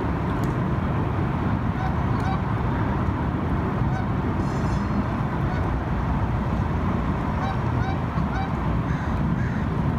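Short animal calls in quick runs, about two seconds in and again from about seven to nine seconds, over a steady low rumble.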